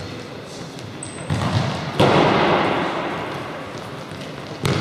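Futsal ball thumps in a large, echoing sports hall: one hard strike about two seconds in, the loudest, ringing on in the hall's reverberation, and another thump near the end.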